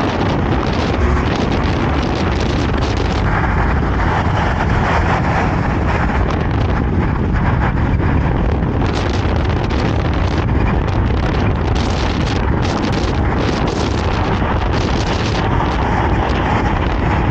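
Loud, steady wind buffeting the microphone of a camera riding on a moving car, over the road and traffic noise of the drive.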